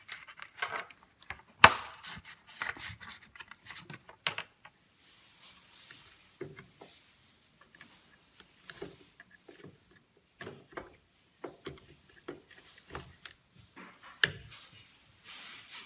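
Scattered plastic clicks and knocks from DDR4 RAM sticks being handled and pushed into motherboard memory slots. A sharp click comes about one and a half seconds in and another near the end, as the slot latches snap shut.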